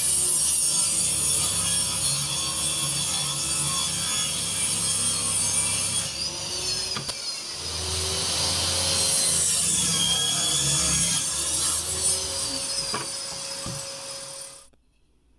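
Table saw running and cutting plywood: a harsh rasping cut over a steady motor hum, which stops suddenly near the end.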